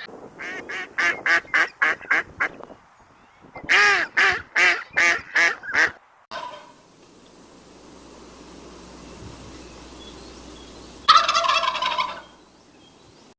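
Animal calls in two rapid series of about eight pulsed notes each, then a steady hiss with a low hum and a short, loud burst of calls near the end.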